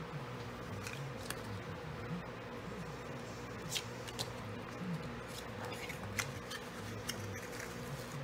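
Cardstock being folded and pressed flat by hand: scattered light paper clicks and crinkles, a few sharper ones midway, over a steady low hum.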